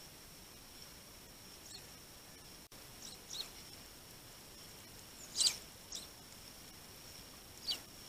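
Eurasian tree sparrows at a feeder giving short, high chirps, about six of them, the loudest a little over five seconds in, over a faint steady high whine.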